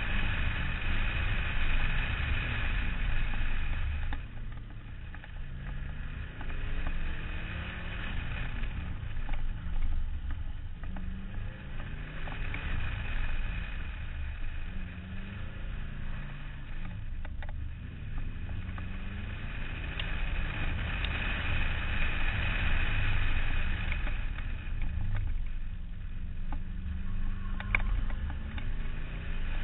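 Subaru WRX rally car's turbocharged flat-four engine pulling hard and lifting off in turn as it laps, the pitch climbing and falling repeatedly, heard from a camera mounted outside on the door over a heavy low rumble. It is loudest near the start, around halfway and about two-thirds through.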